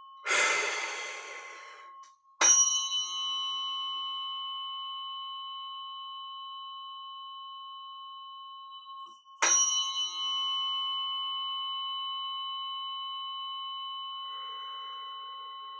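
A breath blown out, then a tuning fork struck about two and a half seconds in, its bright metallic tone ringing on and slowly fading. It is struck again about seven seconds later and left to ring.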